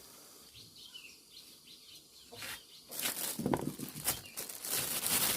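Small birds chirp a few short times in a quiet spell. Then, from just past the middle, a hissing noise swells in and becomes the loudest sound.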